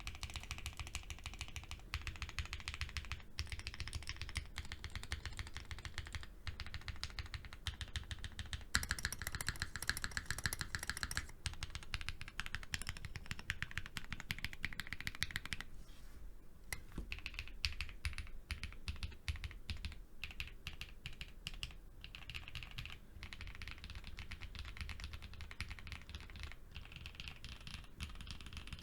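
Continuous typing on an Odin V1 custom mechanical keyboard: lubed Whipped Cream linear switches in a polycarbonate plate, gasket-mounted with all foams, under GMK Muted keycaps. Steady keystrokes run throughout, with a faster burst about nine seconds in and a brief pause around sixteen seconds.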